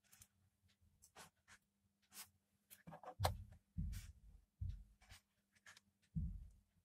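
Faint scratching and small clicks of fingers handling thin copper wires and an earphone cable, with a few soft low thumps from about three seconds in.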